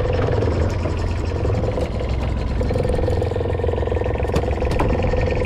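Fishing boat's engine running steadily, a low drone with a humming tone. A couple of sharp clicks come about four seconds in.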